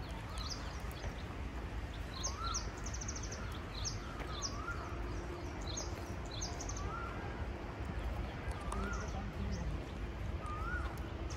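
Wild birds calling in dry scrub: one bird repeats a short rising-and-falling whistle about every two seconds, while others give clusters of quick, high chirps. A steady low rumble runs underneath.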